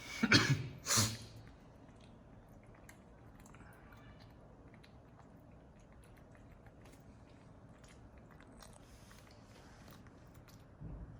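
Two loud crunches in the first second, then faint scattered clicks of chewing, and a short low thump near the end.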